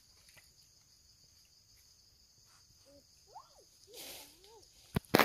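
Insects droning steadily in high-pitched grass, with a few faint rising-and-falling whines about three seconds in and two sharp snaps close together near the end.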